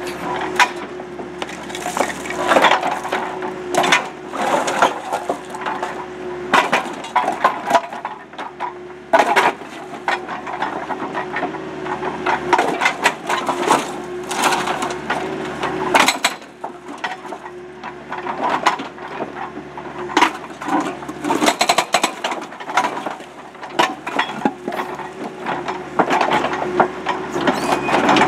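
Rockblaster hydraulic hammer on a mini excavator pounding and breaking a concrete pool wall: a string of irregular hard cracks and crunches as the concrete breaks and chunks fall, over the steady hum of the excavator running.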